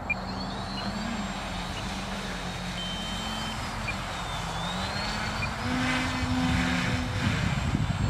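Electric motors and propellers of a remote-control inflatable raft running, a steady whine whose pitch rises and falls with the throttle. It grows louder and rougher about six seconds in.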